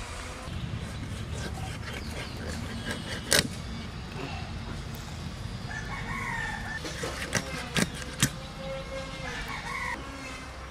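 Heavy chopping blade striking through chicken: one sharp chop about three and a half seconds in, the loudest sound, and three more in quick succession between seven and eight and a half seconds. A rooster calls twice, around six and nine and a half seconds in.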